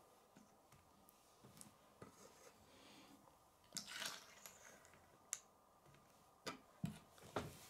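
Near silence with a few faint clicks and taps of small plastic Lego pieces being handled and set down on a wooden table, the clearest about four seconds in.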